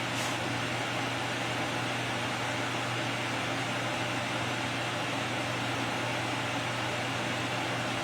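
A fan-driven appliance running steadily: an even whir with a low hum and no change throughout.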